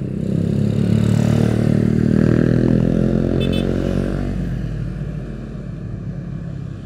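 Motorcycle engine running on the road, growing louder over the first couple of seconds and then slowly fading off.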